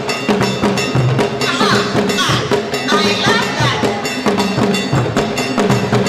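Dance music with a quick, steady percussion beat and a melody line gliding over it.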